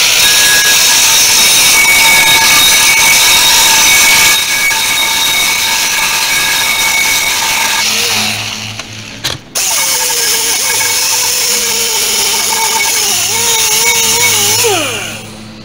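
Corded electric angle grinder grinding the rusty center hole of a steel disc wheel, cleaning the bore so the wheel will fit the hub. The motor whine stops briefly about two-thirds of the way through, restarts with its pitch wavering under load, then winds down near the end.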